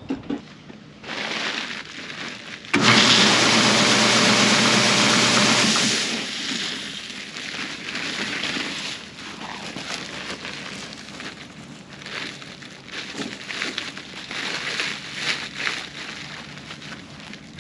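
A storm's precipitation pelting down: a crackling patter of many small hits. A much louder steady rush comes in abruptly about three seconds in and eases off about three seconds later.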